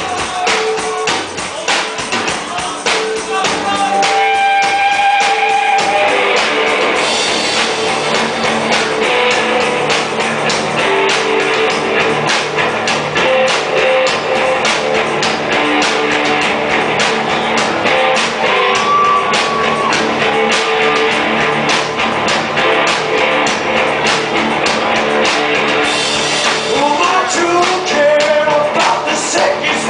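Rock band playing live: electric guitar and a drum kit, with a voice singing at times. The music is sparser for the first few seconds, then the full band comes in hard about six seconds in.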